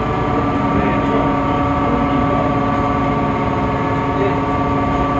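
Temsa Avenue LF city bus's DAF PR 228 diesel engine and ZF Ecolife automatic gearbox running under way: a steady drone with several held whining tones, one of them rising slightly about a second in. This whine is the sound that sets this bus apart from others of its type.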